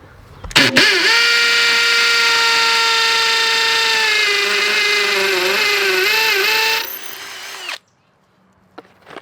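Power drill running for about six seconds while fastening Tapcon screws into a concrete lid: a steady whine whose pitch wavers and drops under load toward the end before it stops.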